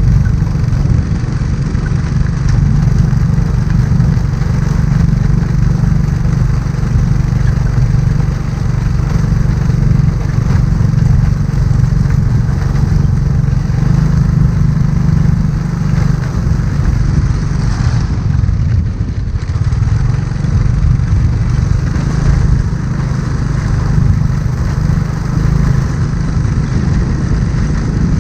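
Motorbike engine running steadily while riding, mixed with wind noise on the microphone. The engine eases off briefly about two-thirds of the way through, then picks up again.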